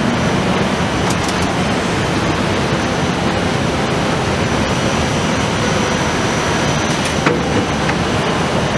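Steady rumble and hiss of a ride car rolling along its track through a large indoor hall, with a few faint clicks about a second in and again near the end.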